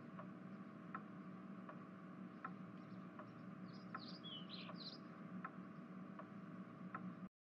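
Faint background ambience: a steady low hum with a soft tick about every three quarters of a second, and a few short high chirps a little past the middle. It cuts off suddenly shortly before the end.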